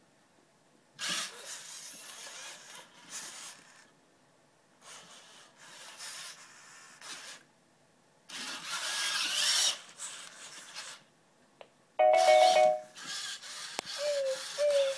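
Genibo QD robot dog's servo motors and gears whirring in several bursts of one to three seconds as it moves through a demo action. Near the end its speaker plays a short, loud electronic chime, then a brief wavering tone.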